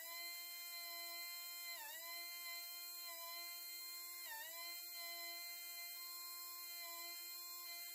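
Pencil die grinder spinning a small grinding stone at high speed, a steady high whine. Its pitch dips briefly twice, about two and four and a half seconds in, as the stone bites into a four-jaw chuck jaw being reground.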